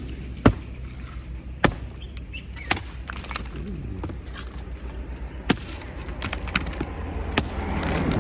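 Hammer blows on masonry during demolition: about five sharp, irregularly spaced knocks, the loudest about half a second in, over a steady low rumble.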